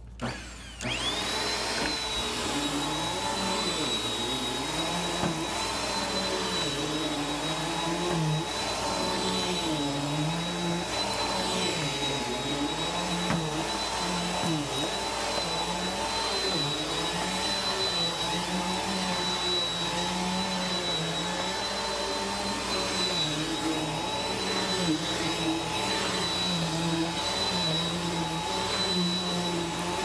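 Bagless upright vacuum cleaner switched on with a click, its motor spinning up within about a second to a steady high whine. It then runs steadily while pushed back and forth over carpet, a lower hum wavering up and down in a regular rhythm.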